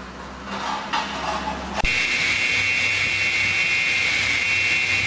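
Multi-blade wood-sawing machine running: a low hum, then about two seconds in a sudden jump to a loud, steady rushing noise with a high, even whine from the spinning blades and motor.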